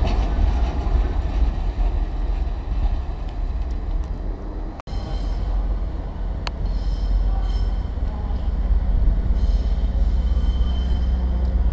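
Diesel multiple units at a station platform: a Pacer railbus rumbling as it pulls out, then, after a break a little before halfway, another diesel unit running in toward the platform with a steady low engine rumble and a faint squeal near the end.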